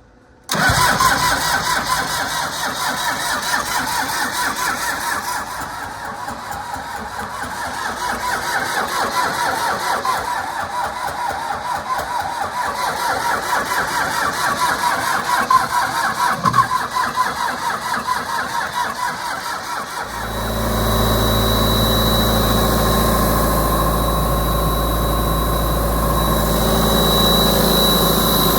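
The engine of a 1998 Ingersoll-Rand 185 portable air compressor starts and runs with a fast, even beat. About 20 seconds in it changes to a louder, deeper, steady drone with a thin high whine above it, as the machine comes up to speed or takes on load.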